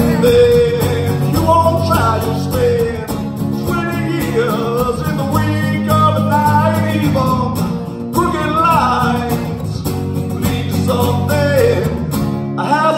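A man singing a melody over a strummed acoustic guitar in a live solo performance.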